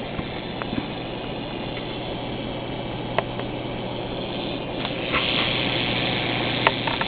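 Insignia NS-LCD26A LCD TV giving off a steady hiss over a low hum, a fault that is still not fixed. The hiss grows brighter about five seconds in, with a few light clicks.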